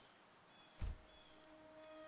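A Volvo car door slamming shut, a single heavy thud a little under a second in. Just after it, a held note of film score music begins.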